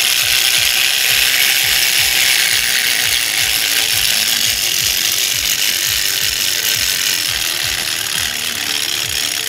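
3D-printed PLA clockwork spring motor running down: the escapement pallet chatters rapidly against the escapement gear while the plastic gear train whirs, a dense fast buzz that starts suddenly and eases off slightly as the wound spring unwinds.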